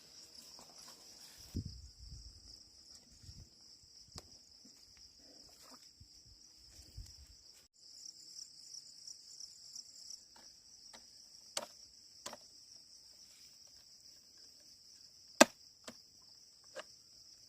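Steady high-pitched drone of an insect chorus, with scattered sharp knocks, the loudest about fifteen seconds in.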